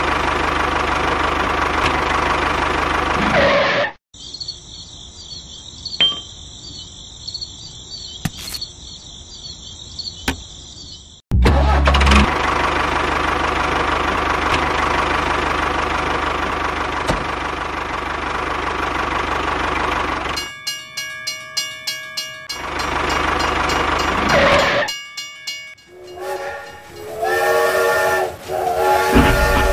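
Small electric motor of a toy tractor running steadily, dropping away for a quieter stretch of several seconds before running again. In the last few seconds a toy train's electronic whistle and sound effects play in pitched tones.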